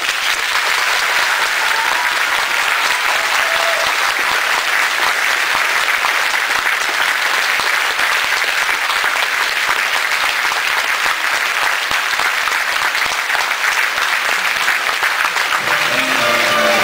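Audience applauding steadily after a dance number. Near the end the band starts playing again.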